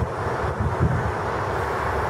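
Road traffic going by, a steady rushing hiss, with wind buffeting the microphone in uneven low gusts.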